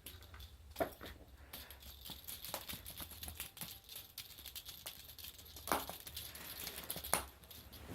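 Faint rattling with scattered light clicks and taps, a few sharper ones standing out.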